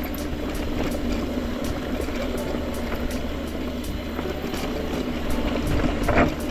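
Electric mountain bike ridden along a trail: steady rolling noise with a low, even hum, and a sharp knock from the bike about six seconds in.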